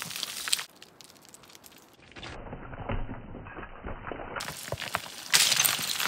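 Brittle cracking, crunching and clinking of ice and frozen snow: a run of sharp cracks and crackles that stops and restarts abruptly several times, loudest and densest near the end.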